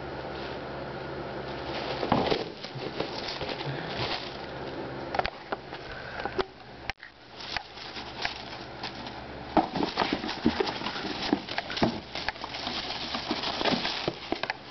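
Crinkling tissue paper and a cardboard shoebox being batted, knocked and scraped as a cat plays with them, a busy run of short rustles and taps. The sound breaks off abruptly about seven seconds in, then the rustling and knocking resume.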